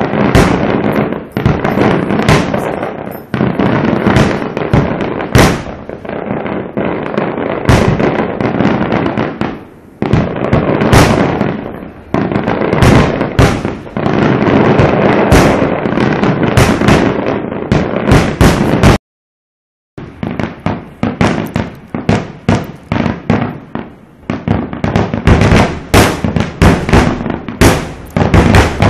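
Aerial fireworks bursting in a dense barrage: overlapping booms and crackling reports, many shells at once. Two-thirds through the sound cuts out completely for about a second, then resumes with rapid sharp bursts, several a second.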